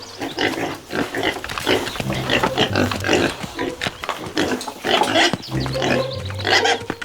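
Pigs grunting and squealing in rapid, repeated calls, over a low steady hum.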